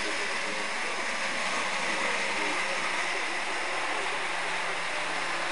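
Model train locomotives running along layout track: a steady whir and rumble of the motors and wheels on the rails.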